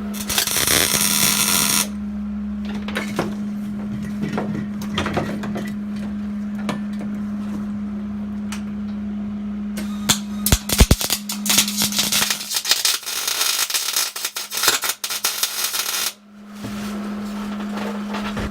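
Welder laying tack welds on a roll-cage tube: a short burst of crackling hiss about half a second in, then a longer crackling, spitting run from about ten seconds to sixteen seconds, over a steady hum.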